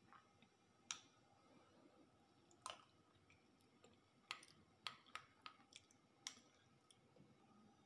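A plastic spoon clicking against a small stainless steel bowl as it stirs and scoops a liquid dessert. About eight quiet, sharp clicks, most of them bunched in the second half.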